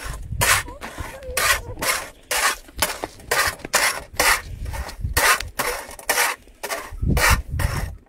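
Metal spatula scraping and stirring wheat grains across a large shallow iron pan over a wood fire, in even strokes about two a second, the grains rustling and the blade rasping on the iron.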